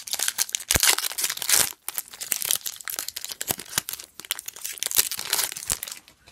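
A foil hockey-card pack wrapper being torn open and crinkled by hand, a dense run of crackling with sharp snaps that stops near the end as the cards come out.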